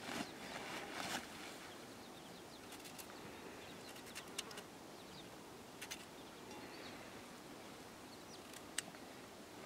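Rustling of a woven plastic sack in the first second or so as potatoes are taken out, then a few sharp clicks of a knife cutting raw potatoes by hand, with pieces dropping into a metal bowl. Faint bird chirps over quiet rural ambience.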